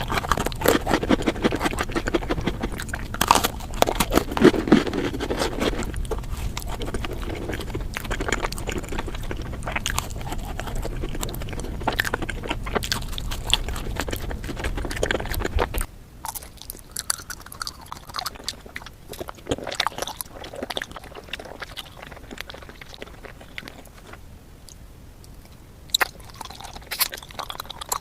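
Close-miked eating of sweets: biting and crunchy, crackly chewing. A little past halfway a low background hum drops away and the chewing becomes quieter, with sparser clicks.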